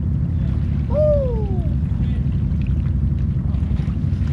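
Quad bike wading through waist-deep muddy water: a steady low rumble with water sloshing and churning around the machine. About a second in, a short call rises and then falls in pitch.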